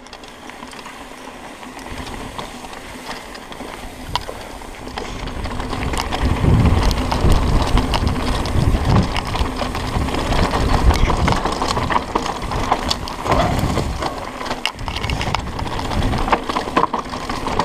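Mountain bike riding down dirt singletrack, heard from the rider's camera: tyres rumbling over the dirt, small rattles and clicks from the bike, and wind on the microphone. It gets louder about five or six seconds in as the bike picks up speed.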